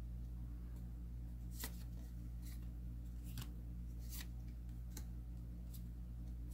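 Magic: The Gathering trading cards being flipped through by hand, each card slid off the stack with a short, crisp swish about once a second, over a steady low hum.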